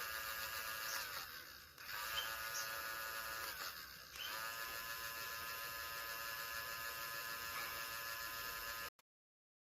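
Small motor of a rechargeable handheld electric whisk buzzing steadily at high speed. It slows and speeds up again twice, then cuts off suddenly near the end.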